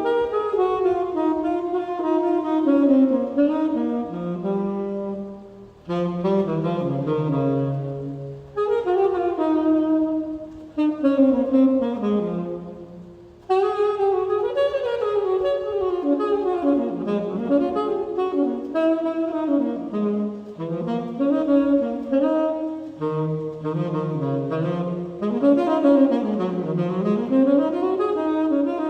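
Tenor saxophone improvising flowing melodic phrases over the steady hum of an electric fan, with short breaths between phrases about 6, 8 and 13 seconds in.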